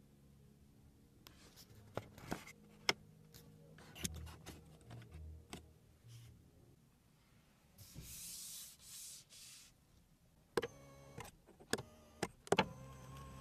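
Faint clicks and rubbing as a Lexus ES300h's dashboard air-vent controls are handled, with a brief hiss about eight seconds in. Near the end the power-mirror adjustment knob clicks several times and a small electric motor whirs as the mirror moves.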